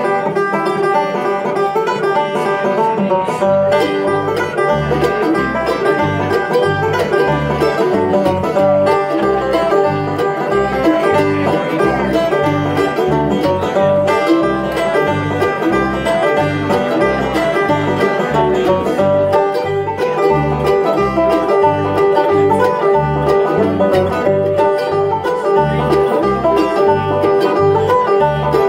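Live bluegrass string band playing, with acoustic guitar, mandolin and bass and a bass line thumping steadily on the beat.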